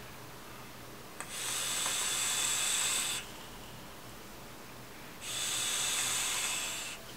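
Two drags of about two seconds each on a Twisted Messes rebuildable dripping atomizer with its airflow wide open, firing 0.15-ohm fused Clapton coils at 130 watts: a steady hiss of air rushing through the deck over the firing coils. The first drag starts with a small click about a second in, and the second starts about five seconds in.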